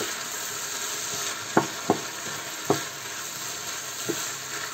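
Rice with pieces of pork and rabbit sizzling steadily in a frying pan over high heat as a wooden spatula stirs it. A few short sharp taps of the spatula against the pan come through, four of them from about a second and a half in.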